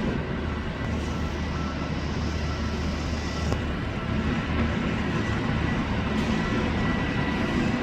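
Steady jet aircraft noise: an even rumble and hiss with a low hum and a faint steady high whine.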